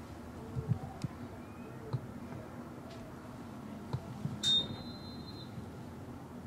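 A single referee's whistle blast about four and a half seconds in: a high steady tone lasting about a second. Around it is faint background noise with a few soft knocks.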